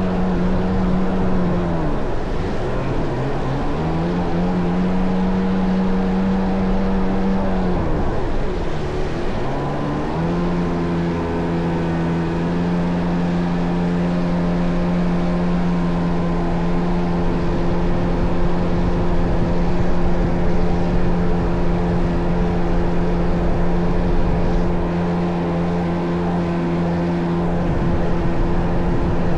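Kawasaki JS550 stand-up jet ski with a swapped-in 650 two-stroke twin, running under way. The engine note drops twice as the throttle comes off, about two seconds in and again around eight seconds in, picks back up each time, then holds steady.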